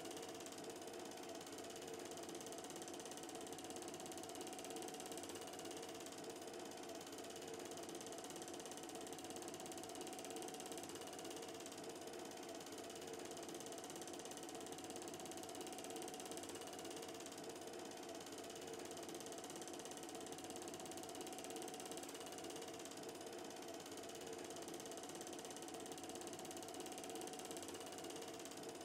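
Film projector running, its mechanism giving a steady, fast, even clatter.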